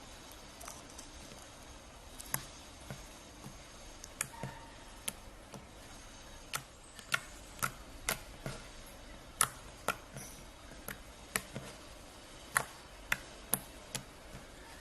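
Slime being squeezed and pressed by hand, giving off sharp, irregular clicks and pops as air pockets burst, coming faster after the first few seconds.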